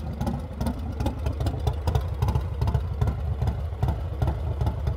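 Stage 2 Harley-Davidson Milwaukee-Eight 117 V-twin idling, with a low, uneven pulsing beat.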